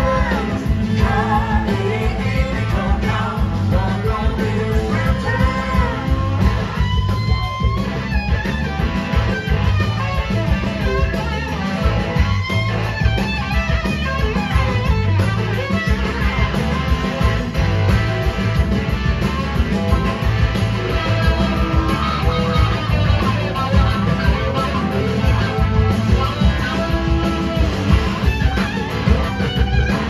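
Live rock band playing: electric guitar lines that glide in pitch over drums, bass and organ, with singing at times.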